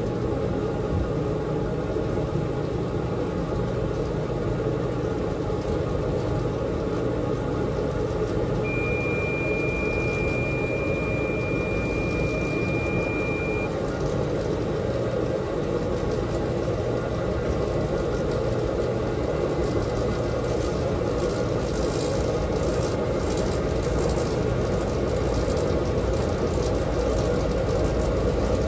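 Dexter T900 commercial front-load washer running with its drum spinning: a steady low mechanical rumble. About nine seconds in, a steady high beep sounds for about five seconds.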